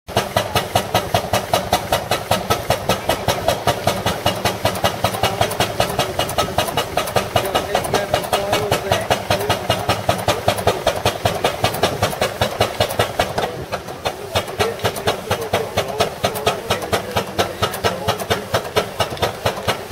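Steam fire engine's steam pump running while it pumps water through the hose, with a rapid, even beat of about four strokes a second that briefly softens about two-thirds of the way through.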